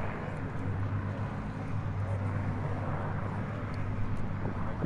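Boeing B-29 Superfortress's four radial piston engines droning steadily as the bomber flies past.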